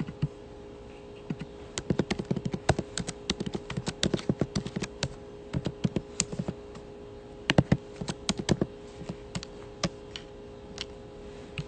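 Fingers tapping quickly and irregularly on a smartphone touchscreen, typing and scrolling, in clusters of sharp clicks with short pauses between them, over a faint steady hum.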